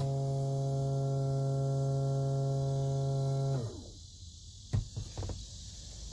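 A steady electric-motor hum from the non-starting 2011 Yamaha FX SHO WaveRunner as it is cranked, with the engine not catching. About three and a half seconds in, the hum winds down in pitch and stops, followed by a couple of short knocks.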